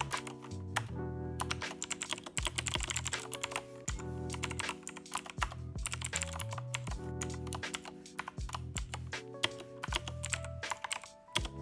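Computer keyboard typing in quick runs of keystrokes with short pauses between them, over background music with held notes and a steady bass line.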